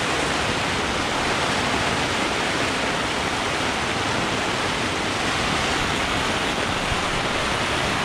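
Heavy rain pouring steadily onto a tent, heard from inside as a loud, even hiss.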